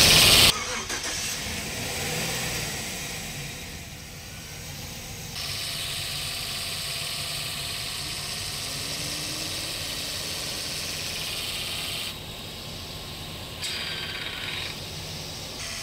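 Pickup truck engine running at idle, heard from beneath the truck, steady apart from a few abrupt jumps in level. It opens with a loud rushing noise that cuts off about half a second in.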